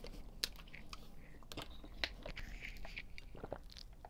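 Faint scattered clicks and crinkles of a plastic water bottle being handled as its screw cap is twisted open.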